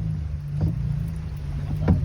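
Jeep Wrangler engine running at low revs as it crawls off-road, a steady low drone, with a couple of short sharp knocks.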